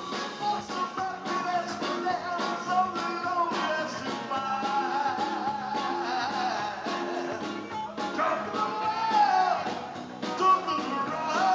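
Live rock band playing: a man singing into a handheld microphone over electric guitars and a drum kit.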